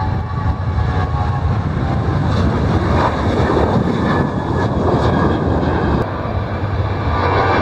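Boeing 737 jet engines at takeoff thrust: a loud, steady roar with deep rumble as the airliner lifts off and climbs away. The sound changes abruptly about six seconds in, to a second 737 on the runway.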